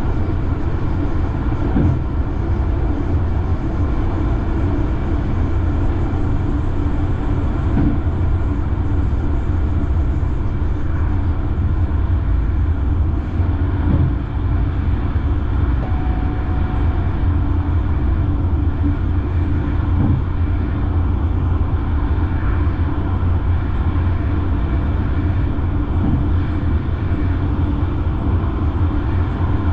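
Light rail train running along the track: a steady low rumble with a faint knock about every six seconds.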